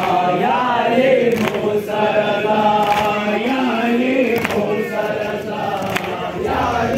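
A crowd of men chanting a noha (Shia mourning chant) together in chorus, with sharp slaps from chest-beating (matam) roughly every second and a half.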